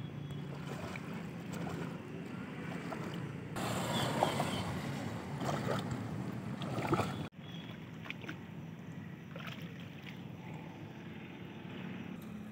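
Water sloshing and splashing as a person wades through a shallow, weedy lily pond, louder and busier for a few seconds in the middle, over a steady outdoor hiss.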